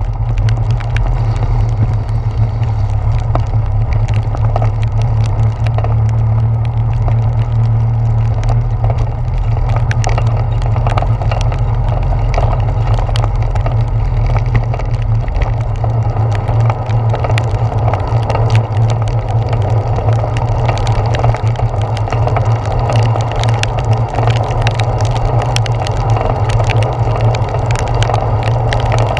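Steady low rumble of wind and road vibration picked up by a handlebar-mounted GoPro Hero 4 as a bicycle rides through heavy rain, with a constant scatter of sharp little ticks from raindrops hitting the camera.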